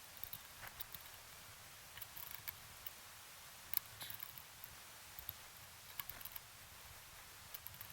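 Faint, scattered small clicks and taps from hand work on a boat engine's ignition distributor, with one sharper click about four seconds in.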